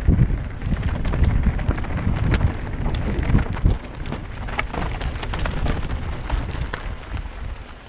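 Mountain bike rolling fast over a loose, rocky stone track: tyres rattling over stones with many sharp knocks and clicks from the bike, over wind buffeting the helmet camera's microphone.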